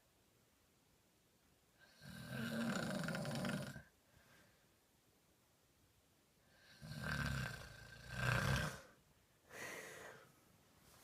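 Snoring in separate snores with quiet gaps between them: one long snore about two seconds in, two close together around seven and eight seconds, and a shorter one near ten seconds.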